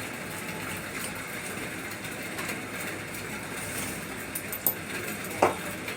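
Small tool and handling clicks and taps during a mobile phone repair, over a steady background hiss; a few clicks come in the second half, the sharpest about five and a half seconds in.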